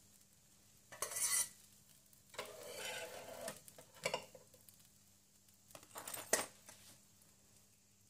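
A metal spatula scraping and clinking on the ridged plate of an electric sandwich grill and against a stainless steel plate as grilled sandwiches are lifted off. There are four or five separate scrapes and clinks, with a faint steady hum under them.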